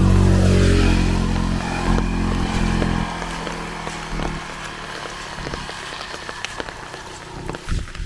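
A motor vehicle's engine passes close by, its pitch dropping as it goes and fading away after about three seconds. Then rain patters steadily with scattered drop clicks.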